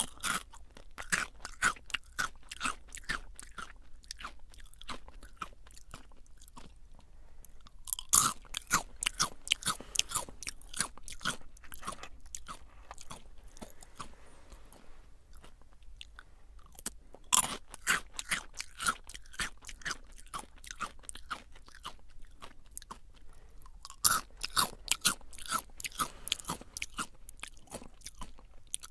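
Close-miked crunching of Jagariko crispy potato snack sticks being bitten and chewed: fast runs of crunchy chews in four bouts with short pauses between. Several of the bouts open with a sharper, louder bite.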